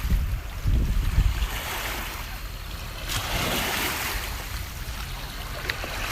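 Small lake waves washing and lapping, with a brighter hissing wash about three seconds in, and wind buffeting the microphone in low gusts during the first second or so.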